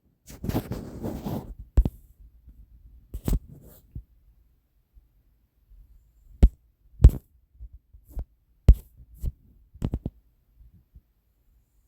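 Scattered sharp taps or knocks, about seven, irregularly spaced, after a brief rustling noise near the start.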